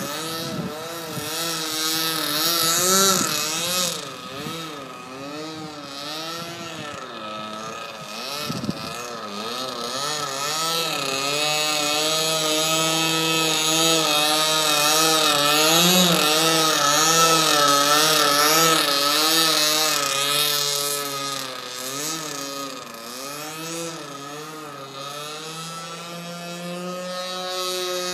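O.S. 40 FP two-stroke glow engine of a 40-inch RC Yak model plane in flight, swinging an 11x4 propeller and exhausting through a Mac's header. Its note rises and falls continually as the plane manoeuvres and passes, and it is loudest about halfway through.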